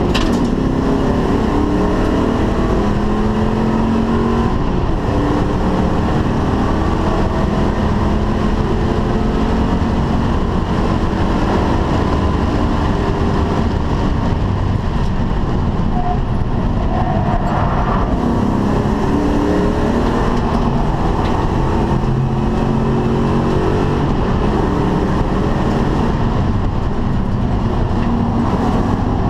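Ford Mustang GT's V8 heard from inside the cabin while lapping a race track, its note climbing in pitch again and again as the car accelerates through the gears. Road and wind noise run underneath.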